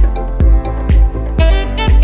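Background music with a steady beat of about two strokes a second under held melody notes.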